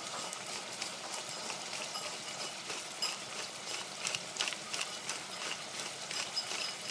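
Hand-twisted spice grinder grinding seasoning, a quick run of irregular dry clicks and crunches from its mill mechanism, over a faint sizzle of onion and pepper in the pan.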